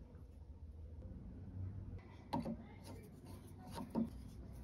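Flat-blade screwdriver tip clicking and grinding in the slot of a screw as it is driven through a metal plate, metal on metal. Two short clusters of sharp clicks come about two seconds in and again near four seconds, the second the loudest.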